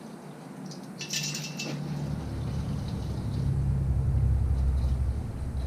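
Engine on an engine stand being turned over by hand: a metallic clink about a second in, then a low rumble that builds and eases off near the end.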